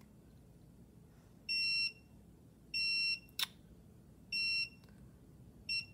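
Handheld electronic diamond tester beeping four times, each a short electronic beep, as its probe is touched to the stones; the beeps are its metal-contact warning, the probe touching the setting. A single sharp tap comes between the second and third beeps.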